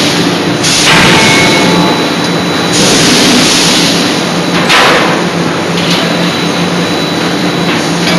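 C92K-80 CNC hydraulic die forging hammer working: a steady hum from its hydraulic drive under repeated loud hissing rushes, each about a second long, with a sharp strike about five seconds in.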